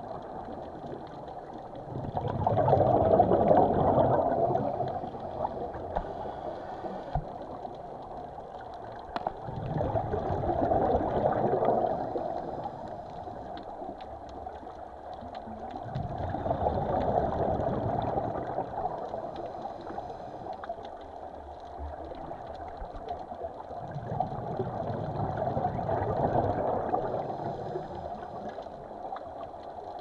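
Scuba regulator breathing heard underwater: four rushes of exhaled bubbles, one about every seven seconds, each lasting two to three seconds, with a quieter hiss between them.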